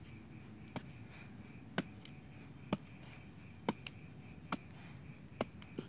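A short-handled hand tool striking into soil, about once a second, six times, as a hole is dug by hand. Behind it, a steady high trilling of night insects, one of them chirping in rapid pulses.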